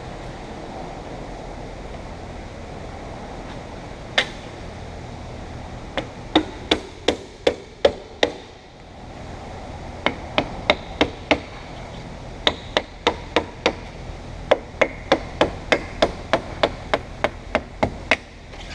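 Runs of sharp hammer taps, about three a second with short pauses between runs, driving a glass-removal knife through the urethane adhesive that holds a car's roof glass.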